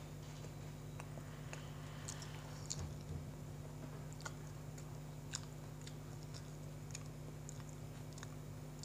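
A person chewing a mouthful of sandwich with the mouth closed: soft, irregular wet clicks and smacks. A steady low hum runs underneath.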